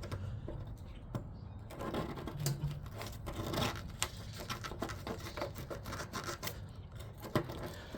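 Irregular clicking and light scraping of a metal tool prying at a rust-seized compressor mount sleeve stuck in its rubber mount on an air conditioner's base pan.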